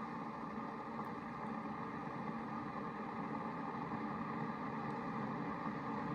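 Keurig K-Compact coffee maker running with a steady hum as it heats its water, slowly getting a little louder.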